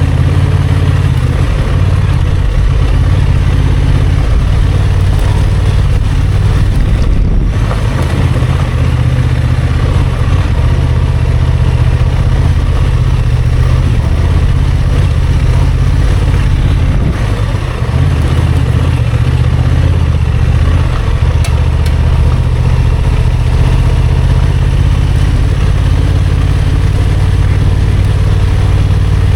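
Honda XL750 Transalp's parallel-twin engine running steadily while the motorcycle is ridden off-road, easing off briefly twice, about seven and seventeen seconds in.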